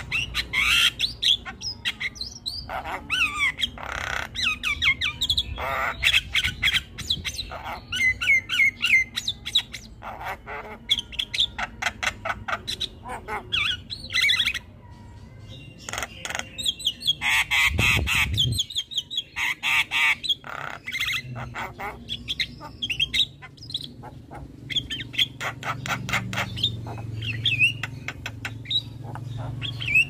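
Javan myna (jalak kebo) chattering and squawking in rapid strings of harsh calls, clicks and whistles, with a short pause about halfway through.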